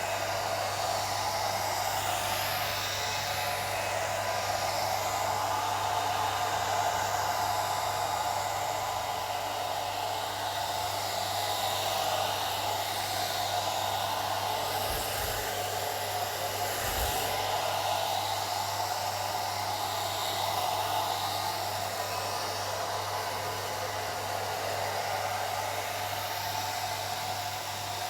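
Old hair dryer running steadily: a continuous rush of blown air with a low hum underneath.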